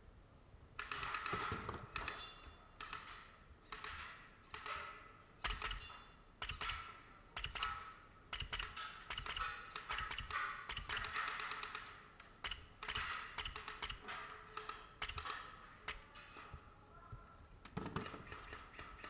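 Airsoft guns firing in repeated bursts of rapid clacking, short and long, starting about a second in and thinning out near the end.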